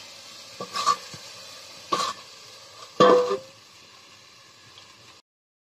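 Vegetables sizzling in a kadai over a wood fire, with three clanks about a second apart as a stainless-steel bowl is set over the pan as a lid; the last clank is the loudest and briefly rings. The sizzle is quieter once the pan is covered and cuts off abruptly about five seconds in.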